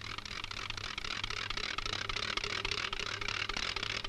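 Steady hiss and dense crackle of an old film soundtrack over a low constant hum, with no speech.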